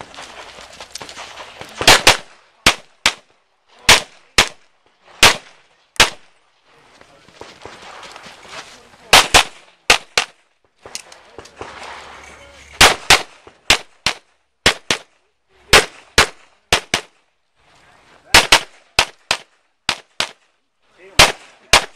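Pistol shots fired rapidly in a practical shooting stage: the first shot comes about two seconds in, then strings of shots, mostly quick pairs, broken by short pauses of one to two seconds while the shooter moves between positions.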